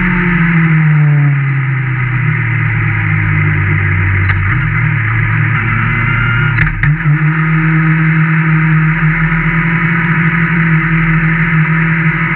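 Open-wheel race car's engine running on track, its pitch falling over the first few seconds, then settling at a steady higher pitch after a short break in the sound about seven seconds in, with a constant rush of wind and tyre noise.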